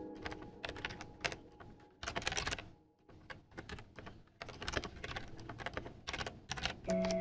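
Typing on a computer keyboard: quick, irregular flurries of keystrokes with a short pause midway. Background music fades away at the start and comes back near the end.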